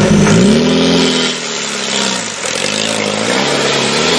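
Land Rover Defender 90's engine revving hard under load as it climbs through a deep rut, pitch surging up, dropping back about halfway, then rising again near the end, while its wheels spin and throw dirt.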